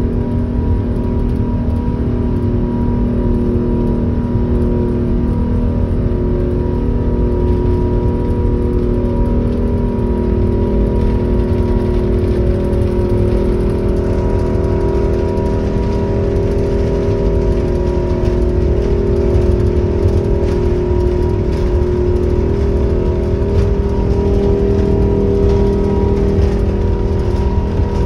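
Airbus A380 jet engines at takeoff power heard from inside the cabin during the takeoff roll: a loud, steady rumble with several held engine tones.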